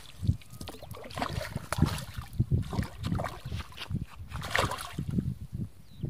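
A hooked fish splashing and thrashing at the water's surface as it is played on a rod, in irregular sloshes with stronger splashes about a second in and again near the end.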